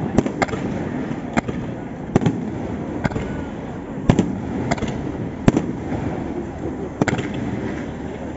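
Aerial fireworks shells bursting overhead: about nine sharp bangs at uneven intervals over a steady rumbling background.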